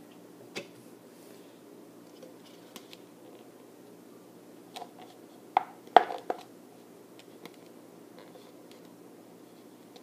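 Thin plastic cup being handled and pierced with a thumbtack: scattered faint ticks and a few sharp plastic clicks, the loudest two coming about six seconds in.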